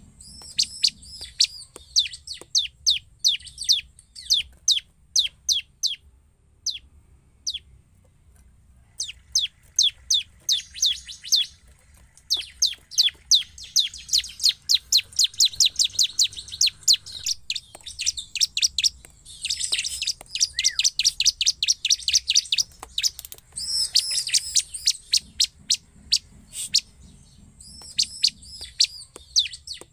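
Bar-winged prinia (ciblek) singing vigorously: rapid series of sharp, high, falling chirps, several a second, in long bouts with short pauses, and a few warbled trills mixed in.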